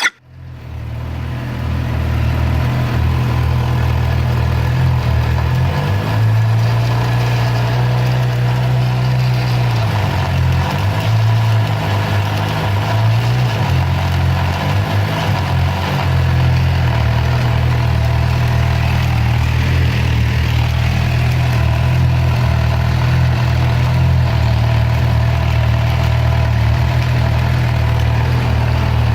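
Suzuki GSX-R 750's inline-four engine idling. Its pitch lifts and wavers between about 6 and 14 seconds in, then settles back to a steady idle.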